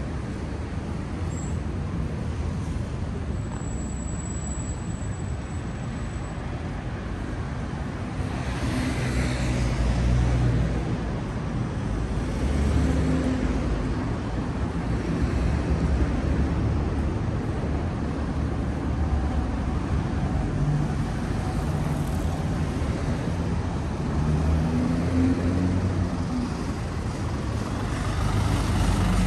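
City street traffic: a steady rumble of car and bus engines running, with something louder passing about nine seconds in.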